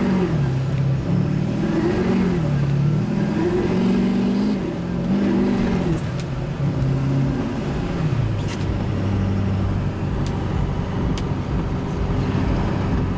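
Duramax turbo-diesel V8 pickup accelerating, heard from inside the cab. The engine note rises and drops several times, then holds steady from about eight seconds in.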